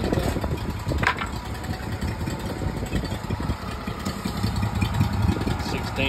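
Timberking 1600 sawmill's gas engine idling steadily between cuts, with one short sharp click about a second in.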